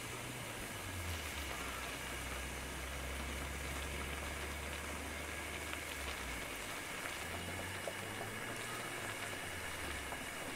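Steady hiss over a low hum, with a few faint clicks.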